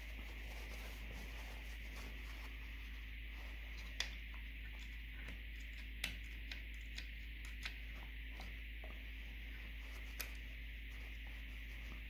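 Small screwdriver scraping and ticking against the plastic housing of a blend door actuator as old grease is dug out of it: a few faint sharp clicks, the clearest about four seconds in, over a steady background hiss.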